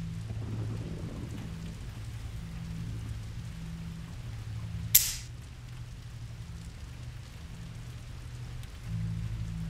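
A revolver's hammer snapping down on an empty chamber once, about halfway through: a single sharp, dry, metallic click under a low droning hum.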